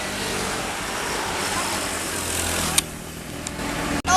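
Road vehicle noise: an engine running with a rushing haze of tyre and traffic sound. About three seconds in there is a sharp click and the sound drops quieter.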